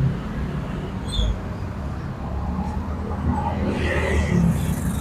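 Street-side background noise: a steady low rumble of traffic with faint voices, and a hissing swell about four seconds in.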